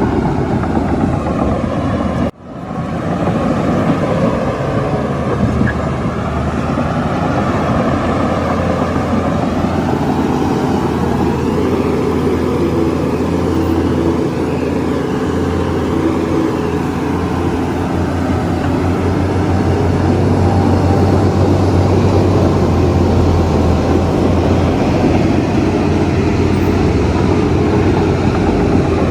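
Heavy diesel engine of a Shantui bulldozer running steadily under load, with a low drone and mechanical clatter. The sound cuts out for a moment about two seconds in.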